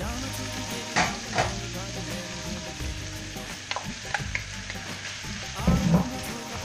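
Wood ear fungus sizzling in a frying pan as scrambled egg is scraped in from a bowl and stirred with a wooden spatula. A couple of sharp knocks about a second in, and louder knocks near the end as the spatula hits the pan and bowl.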